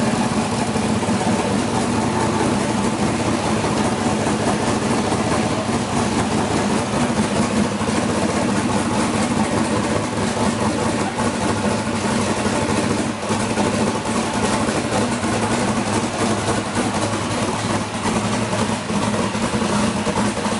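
Twin-turbocharged V8 in a Fox-body Ford Mustang idling steadily, with no revs.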